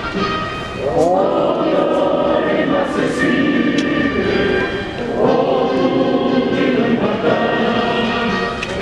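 A choir singing with musical accompaniment, in phrases of long held notes.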